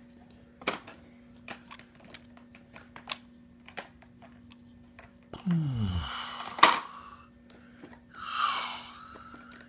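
Light plastic clicks and knocks of toy vehicles and figures being handled on a plastic toy track set, with a sharp louder clack about six and a half seconds in. A short falling sound with a hiss comes just before it, and a brief noisy burst follows about two seconds later.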